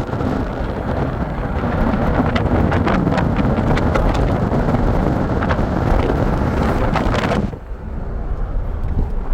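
Wind buffeting the microphone over the rumble of a moving vehicle. A few faint clicks come through, and about three quarters of the way in the noise suddenly thins and drops.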